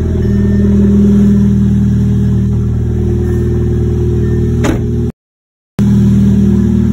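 Volkswagen Beetle engine running steadily through a new exhaust, giving a deep, even exhaust note. A brief click comes about two thirds in, and the sound cuts out for under a second shortly after.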